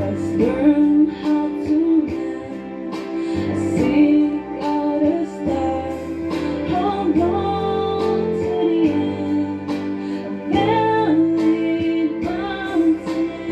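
A woman singing a slow melody into a microphone, with held notes that bend in pitch, over a steady instrumental accompaniment.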